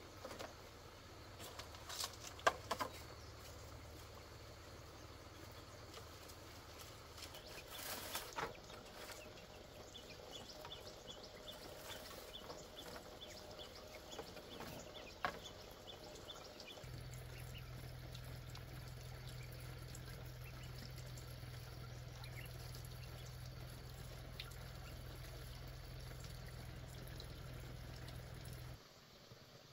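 Faint outdoor quiet broken by a few scattered knocks and rustles as bamboo poles are handled. Midway there is a short run of quick, high ticks.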